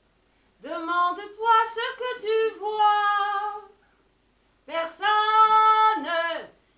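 A woman singing unaccompanied, in two phrases with a short pause between; the second phrase holds one long note before falling away.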